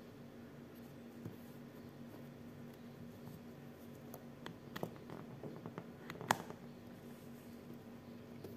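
Small clicks and taps of a USB-C cable connector and a plastic multiport adapter being handled and plugged into a laptop's USB-C port. The clicks come in a cluster in the middle, the sharpest about two-thirds through, over a faint steady hum.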